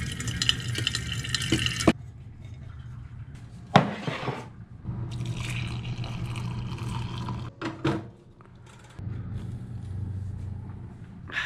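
A drip coffee maker's brew stream splashes into a glass carafe for about two seconds and then cuts off abruptly. Coffee is later poured from the carafe into a mug for a couple of seconds. There are a few sharp knocks and a low steady hum underneath.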